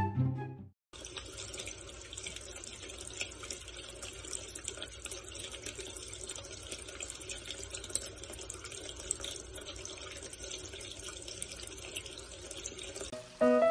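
A thin stream of water splashing steadily onto a shallow plastic dish, between a brief snatch of music that cuts off in the first second and music that comes back near the end.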